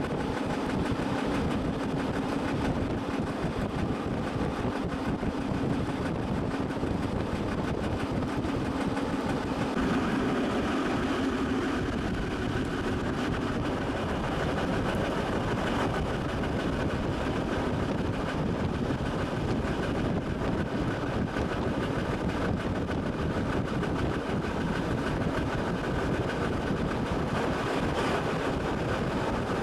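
Running noise of a railway passenger coach heard from inside: a steady rumble and rattle of wheels on rail. A low hum in the sound fades about twelve seconds in.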